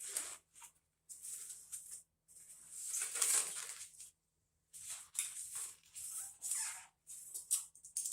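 Handling noises: irregular rustling and scraping in short bursts of a second or so, with brief pauses between them.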